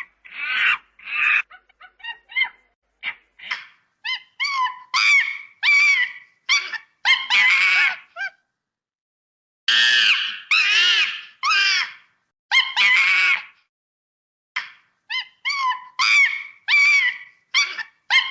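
Monkey calling in a long series of short, high cries, each bending in pitch, with pauses of about a second near the middle and again later on.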